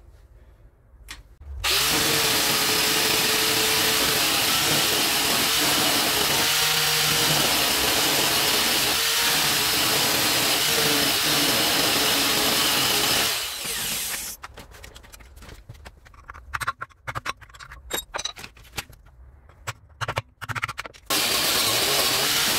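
A power tool fitted with a wire brush running against a steel wheel rim, stripping rust and old paint. It starts about two seconds in, spins down about halfway through, gives way to several seconds of irregular clicks and knocks, and starts again near the end.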